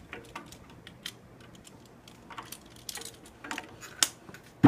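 Snare wires and strainer hardware being handled while fitted to a snare drum: scattered light metallic clicks and ticks, with a sharper click about four seconds in.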